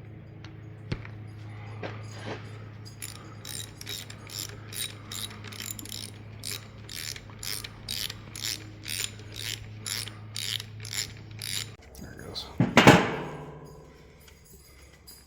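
A ratchet clicking at an even pace, about two to three clicks a second, over a steady low hum. The hum stops near the end and is followed by one loud metal clank.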